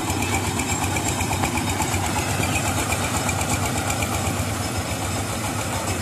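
Mini combine harvester's engine running steadily, a rapid even pulsing note, as the machine is readied to drive down the ramps off the truck bed.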